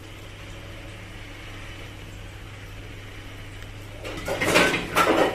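Kebabs frying quietly in oil in a nonstick pan on a low flame: a faint hiss over a steady low hum. About four seconds in comes a short run of scraping and handling noise as kebab mince is pressed by hand onto a metal skewer over a plate.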